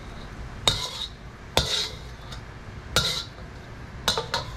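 Metal wok spatula clinking against a wok while scooping fried anchovies into a glass bowl: three sharp clinks about a second apart, then a quick run of three near the end.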